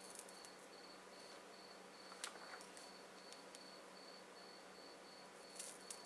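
Near silence with a faint high-pitched chirp pulsing evenly throughout and a low steady hum. A few light clicks of small parts being handled on the bench come through, the sharpest about two seconds in and a couple more near the end.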